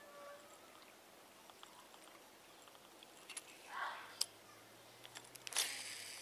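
A fishing lure splashes onto still pond water about four seconds in. Then come sharp clicks and a louder burst near the end, as a baitcasting reel is engaged and wound in with a high whir.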